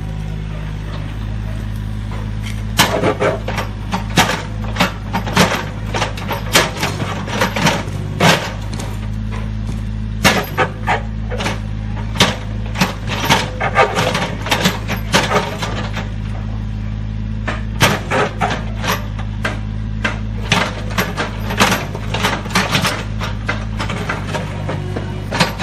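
Mini crawler excavator's engine running steadily while its bucket digs, with a fast, irregular clatter of knocks and scrapes from about three seconds in as the bucket strikes and drags through soil, stones and broken brick.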